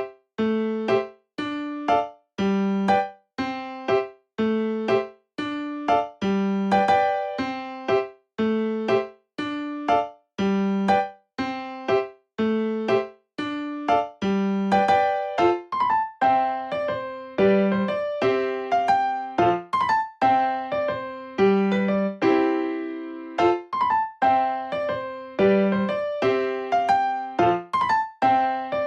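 Background music: a light, bouncy piano or electric piano tune in a steady rhythm, with struck notes that die away, repeating a short phrase.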